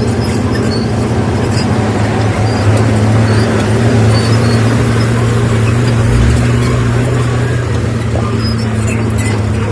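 Heavy diesel engine of earthmoving machinery running steadily with a deep, even hum, a little louder in the middle.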